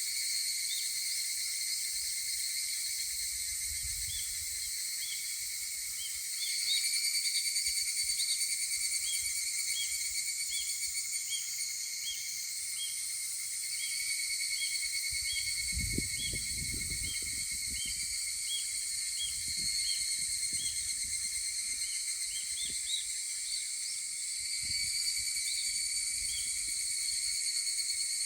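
A chorus of higurashi (evening cicadas, Tanna japonensis) singing: a steady shrill high chorus with a row of short repeated notes about twice a second. Some low rumbling thumps come about halfway through.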